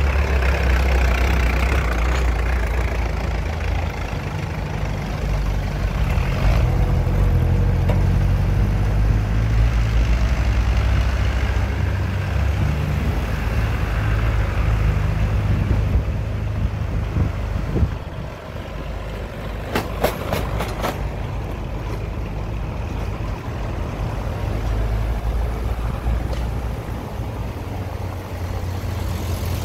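Engines of a line of vintage vehicles on a cobbled lane: an old tractor's engine chugging as it drives past, then other old engines running and pulling up. A short run of sharp clicks comes about two-thirds of the way through.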